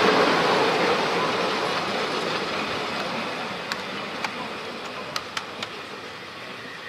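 Narrow-gauge train wagons rolling away on the rails, the rumble of their wheels fading steadily, with a few sharp clicks of wheels over the track about four to six seconds in.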